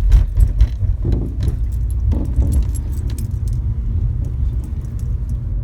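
Car driving over a rough, bumpy street, heard from inside the cabin: a steady low road rumble with rapid clicking and rattling as the wheels hit the bumps. The rattle is the noise the owner hears from the right front suspension over every bump.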